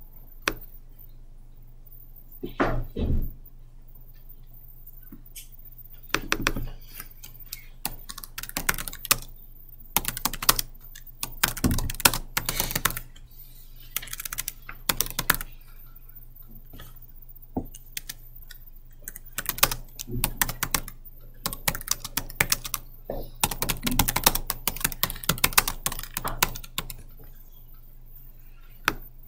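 Typing on a computer keyboard: bursts of rapid key clicks separated by short pauses, over a steady low hum.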